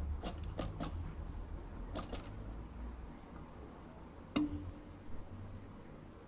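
Sharp clicks and taps from a wire bird cage. A quick cluster comes in the first second and a few more around two seconds in. A single knock a little after four seconds rings briefly. No birdsong.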